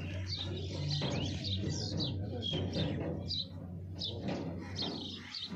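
Small birds chirping again and again in quick, short calls over a steady low hum.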